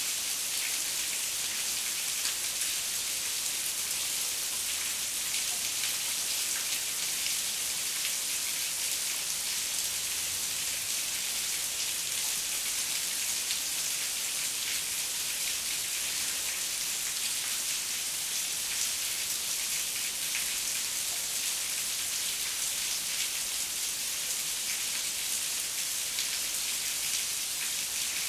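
Heavy rain falling steadily: an even hiss with a fine patter of individual drops.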